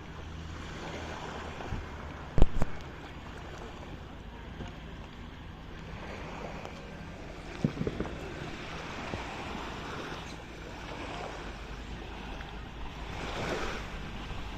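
Sea water washing and surging with wind on the microphone over a low steady hum, with a louder swell near the end. Two sharp thumps stand out, about two and a half and eight seconds in.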